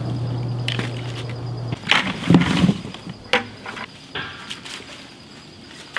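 Black walnuts knocking and clattering as they are tossed into a plastic bucket, several sharp knocks a couple of seconds in, along with the rustle of dry leaves on the lawn. A low steady hum runs through the first couple of seconds.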